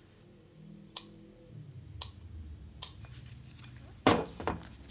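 Three light, sharp clicks about a second apart as the valve stem and its seal are handled on an aluminium Harley Evo cylinder head. Near the end come a louder knock and scrape as the cylinder head is turned on the workbench.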